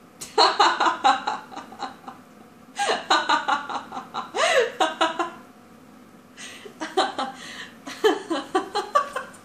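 A woman laughing in three bouts of quick repeated pulses, each lasting about two seconds, with short pauses between.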